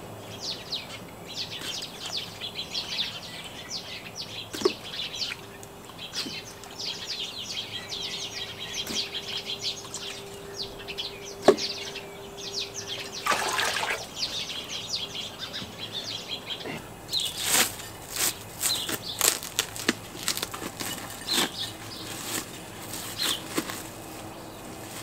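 Small birds chirping steadily in the background, with a faint steady hum that stops about halfway. In the last third, a plastic bag crinkles and rustles in quick clicks as vegetables are handled over the pot.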